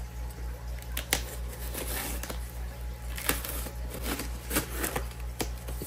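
Small knife slitting packing tape on a cardboard shipping box, with scattered clicks, scrapes and crinkles of the tape and cardboard being handled, over a steady low hum.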